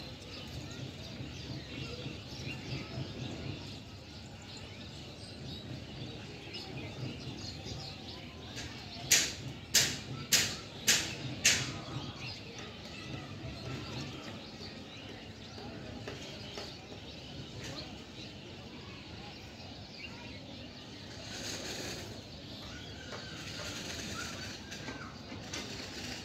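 Birds chirping over a steady low background hum of the city. About nine seconds in, five sharp knocks come about half a second apart.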